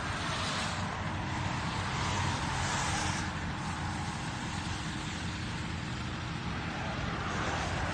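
Tow truck engine running steadily under load as it drags a second tow truck stuck in roadside mud, with a low rumble beneath a steady hiss.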